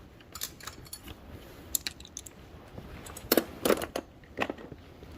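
Metal parts and hand tools clinking and knocking while motorcycle footpeg hardware is handled: a string of separate sharp clinks, loudest a little past the middle.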